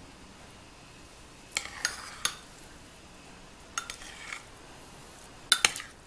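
Metal spoon clinking and scraping against a ceramic bowl while stirring thick chia seed pudding. The clinks come in three short runs about two seconds apart, and the last, near the end, is the loudest.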